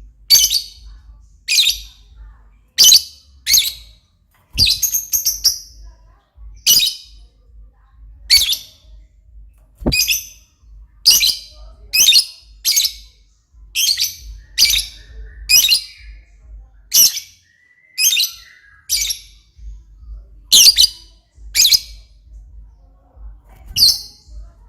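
Lovebird giving short, shrill chirps over and over, roughly one a second, with one slightly longer call about five seconds in.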